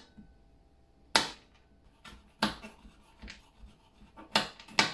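Large chef's knife chopping shelled pistachios on a cutting board: four separate sharp chops, the last two close together near the end.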